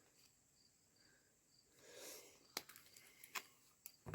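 Near silence with faint, evenly repeated high chirps of a cricket, then a few faint sharp clicks from a little past halfway.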